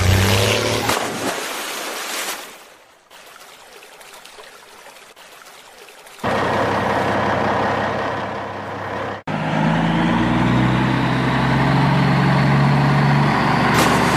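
Water splashing and rushing as toy trucks plough through a shallow river, quieter for a few seconds near the start, with a steady truck engine sound running over it from about two-thirds through.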